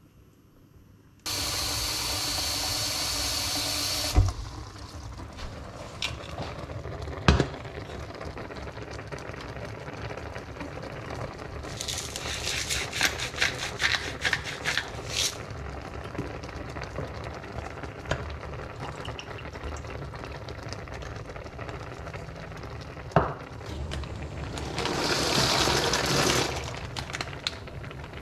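Water running from a kitchen tap into a pot for about three seconds, then shut off sharply, followed by a heavy clunk and a few knocks of cookware on the hob. Later comes a spell of rapid clicking, and near the end a second loud rushing pour into the pot, all over a steady low background.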